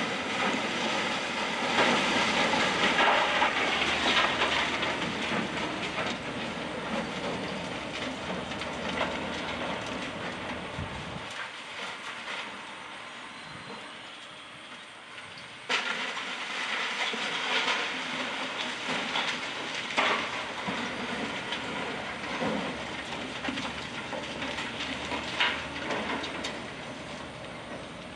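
Brick and concrete debris crashing and rattling down from a building being demolished by a wrecking ball. The crashing is loudest in the first few seconds and slowly dies away, then a fresh burst of crashing starts suddenly about halfway through, with a few smaller crashes after it.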